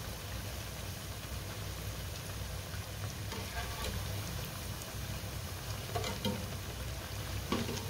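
Lacha pakoras, shredded potato balls, deep-frying in hot ghee with a steady sizzle. A wire mesh skimmer taps against the pan a couple of times, about six seconds in and near the end.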